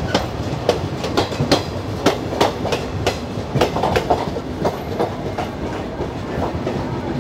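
Train wheels clattering over rail joints with a steady running rumble, heard from the open door of a moving passenger coach while a second train runs alongside on the next track. Sharp clacks come irregularly, about two or three a second.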